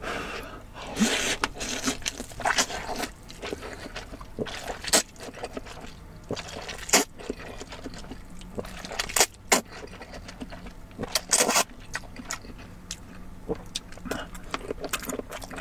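Close-up eating sounds of beef noodle soup: wet slurping and chewing of noodles, broken by scattered sharp clicks.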